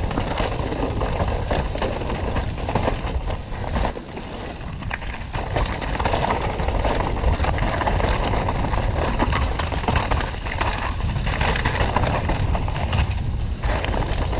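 Mountain bike riding down a rough trail: a continuous rushing noise from wind and tyres on dirt, full of frequent rattles and knocks from the bike, with a short lull about four seconds in.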